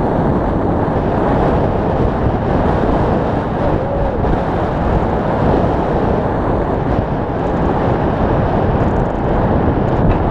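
Loud, low, steady rush of wind over the microphone of an action camera mounted on a hang glider's wing in flight.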